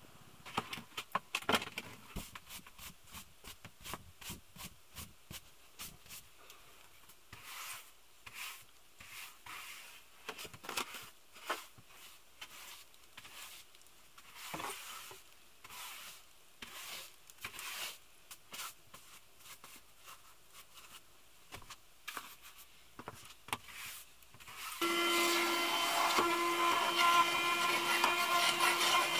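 A hand brush sweeping a plywood van floor in short, irregular scratchy strokes. About 25 seconds in, a small handheld vacuum cleaner switches on and runs with a steady whine, louder than the sweeping.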